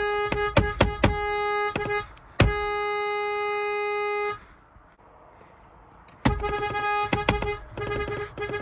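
Nissan Rogue car horn, one steady pitched tone, held in two long blasts of about two seconds each with a short break between. After a pause of about two seconds it gives a quick series of short honks. Sharp clicks fall over the long blasts.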